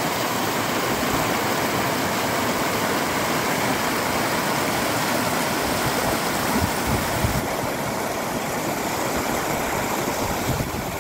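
Shallow mountain stream rushing and splashing over rocks and boulders, a steady, even sound of running water.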